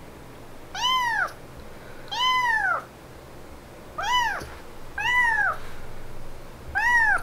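A very young kitten crying with five high-pitched meows, each one rising and then falling in pitch and lasting about half a second, spaced roughly a second apart.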